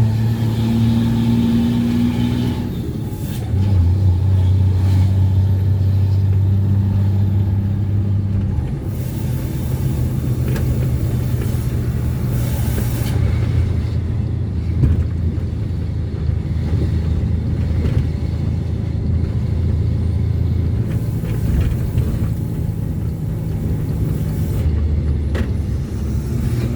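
Ford Cargo 2428 truck's diesel engine running under way, its note shifting up and down a few times as the revs change. A couple of short hisses come in about ten and thirteen seconds in.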